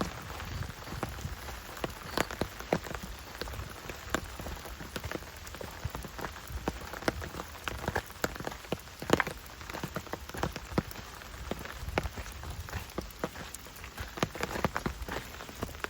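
Rain falling as a steady patter, with many separate drops tapping sharply and irregularly close by.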